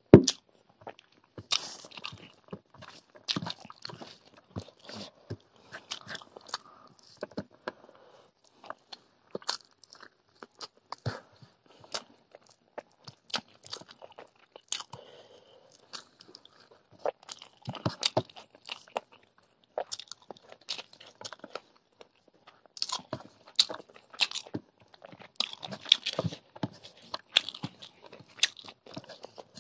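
Close-miked chewing and mouth sounds of a person eating chicken leg curry and rice by hand: a run of short, wet clicks and smacks that gets busier in the last third.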